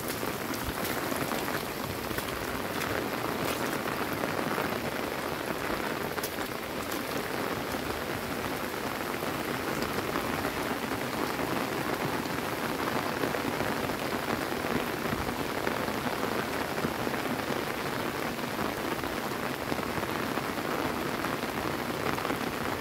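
Steady rain falling on wet ground and flooded rice paddies: an even, unbroken hiss.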